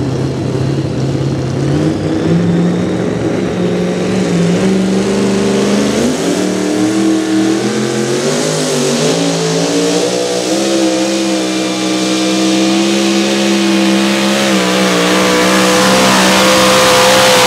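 Super modified two-wheel-drive pulling truck's supercharged engine revving and then running at high revs under load as it drags a weight-transfer sled. Its pitch climbs in steps over the first several seconds, then holds high and grows louder toward the end.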